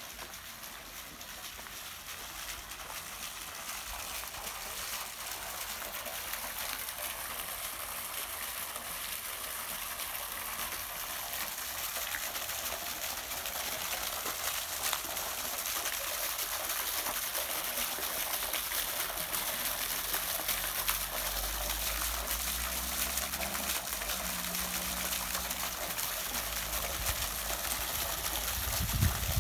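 Running water, a steady noise that slowly grows louder.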